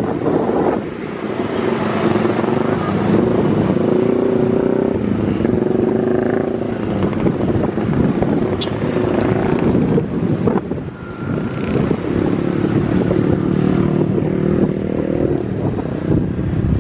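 Wide-body twin-engine jet airliner's engines running loudly as it rolls out along the runway just after touchdown: a steady rushing roar with a hum of several low tones that eases a little around the middle and comes back near the end.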